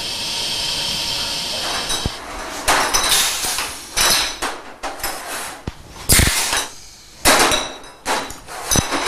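Steady machine hiss, then from about two and a half seconds in, repeated sharp clinks and clacks of glass jars and machinery on a honey jar-filling line.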